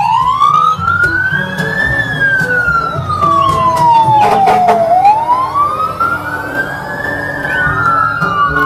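Fire-engine siren wailing in a slow rise and fall: it climbs over about two seconds, falls over about three, climbs again and starts to fall near the end. A low steady rumble runs underneath, with a few clicks about halfway.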